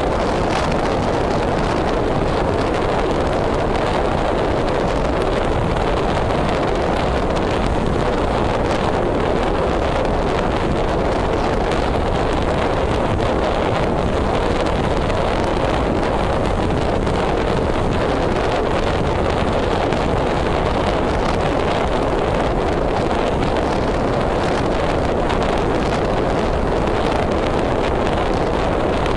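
Steady rush of wind on the microphone mixed with the road and engine noise of a car driving.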